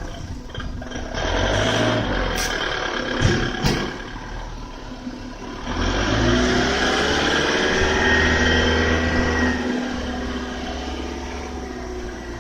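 Fully automatic carton baler machine running with a steady mechanical hum. There are a few sharp clanks about two to four seconds in, then from about six seconds in the machine grows louder with a wavering whine.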